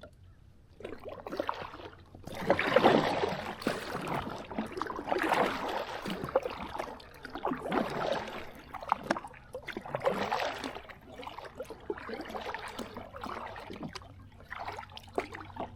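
Kayak paddle strokes in calm water: the blade dipping and splashing with water dripping, in a regular rhythm of about one stroke every two and a half seconds.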